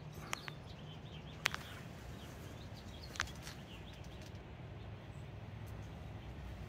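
Quiet outdoor background: faint bird chirps over a low steady hum, with a few sharp ticks, one about a second and a half in and one about three seconds in.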